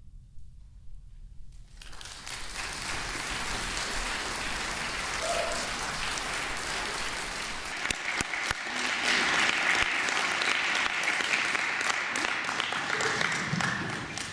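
Audience applauding, beginning about two seconds in after a brief hush, growing louder past the middle and thinning near the end.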